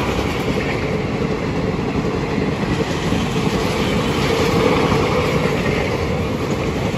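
Passenger train of coaches rolling past on the track, a steady rumble of wheels on rail.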